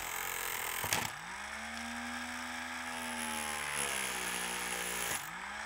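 Dremel rotary tool with a cutoff wheel grinding through a carbon-fibre tube at low speed. A motor whine runs over a gritty grinding hiss; its pitch rises about a second in, sags slightly as the wheel bites, and dips and recovers near the end.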